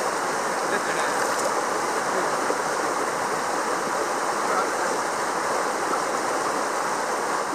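River rapids rushing over rocks: a steady, unbroken rush of white water.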